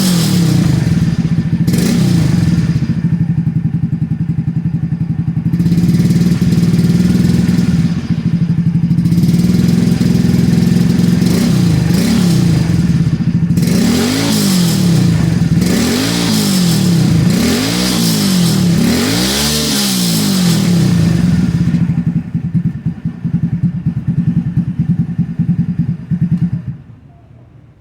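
Kawasaki Fury 125 motorcycle engine running through a Suzuki Raider gen 1 exhaust canister with a 51 mm elbow header: idling with quick throttle blips, a run of about five revs in a row in the middle. The idle turns uneven and the engine cuts off near the end.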